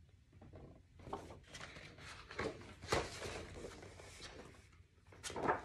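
Paper rustling and soft knocks as a picture book is handled and its pages turned, the loudest knock about three seconds in.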